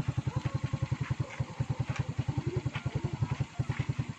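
Motorcycle engine idling, a steady, even putter of about ten beats a second.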